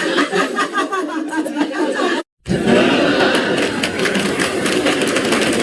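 AI-generated audience laughter sound effect: a crowd laughing and chattering. One clip ends just over two seconds in, and after a brief silence the next clip starts.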